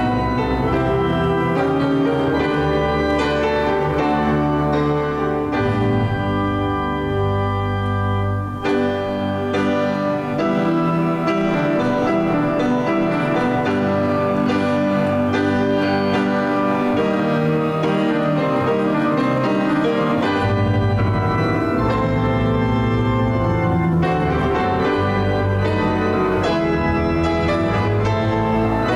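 Organ playing a postlude, slow sustained chords over a held bass line that changes every few seconds.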